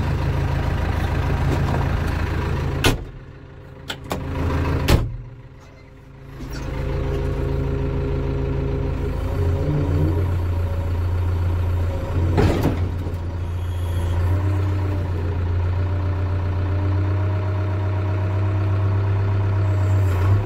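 JCB 3DX backhoe loader's four-cylinder diesel engine running steadily. There are two loud knocks about three and five seconds in, with the engine sound much weaker between them. The engine note shifts about ten seconds in as the backhoe controls are worked, and there is another knock a little later.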